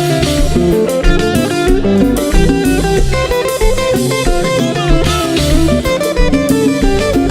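Konpa band music: electric guitars playing interlocking plucked lines over bass and a steady drum-kit groove, without vocals.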